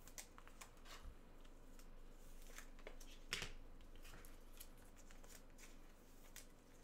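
Faint rustling and a few light clicks of trading cards being handled and sorted on a desk, the strongest click about three seconds in.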